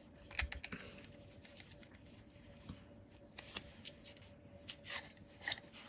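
Faint plastic clicks and scrapes from an Insta360 One RS action camera and its plastic mounting case being handled as the camera is worked out of the case. There is a cluster of clicks about half a second in, a couple more around the middle, and a few near the end.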